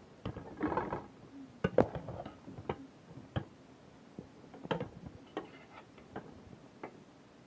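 Irregular light clicks and taps, about a dozen, from handling around the cooking pots, with a brief pitched sound about a second in.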